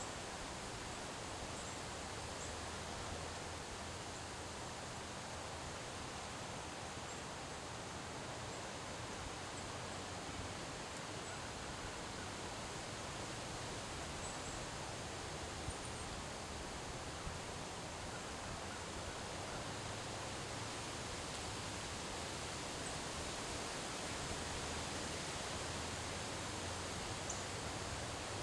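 Steady wind rushing through trees with leaves rustling in an autumn windstorm, swelling a little near the end.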